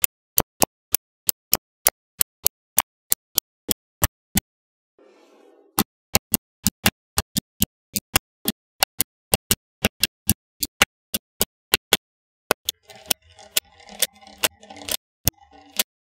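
Small magnetic balls clicking into place one at a time, a sharp click about three times a second, with a short pause near the middle. Near the end a softer rattling rustle runs under the clicks.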